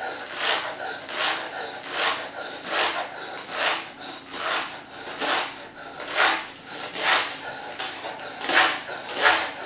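Chef's knife slicing a stack of leek into thin strips on a wooden cutting board: about a dozen even strokes, roughly one a second, each a short crunch through the leek ending against the board.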